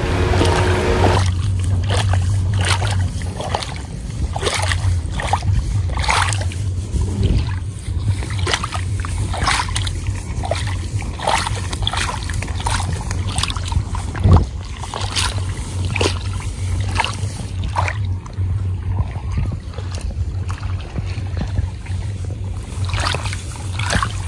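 Rice seedlings being pulled by hand from a flooded nursery bed: repeated wet squelches and splashes of mud and water as the roots tear free, about one a second, one louder about fourteen seconds in. A steady low rumble runs underneath.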